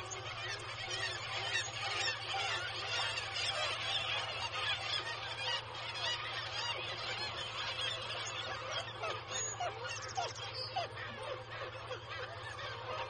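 Nesting seabird colony calling, mostly black-legged kittiwakes: a dense din of many overlapping nasal calls, with a steady low hum underneath.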